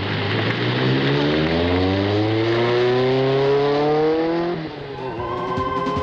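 Peugeot 205 Turbo 16 rally car's turbocharged four-cylinder engine accelerating hard, its pitch climbing steadily for about four and a half seconds. It then cuts off and music comes in near the end.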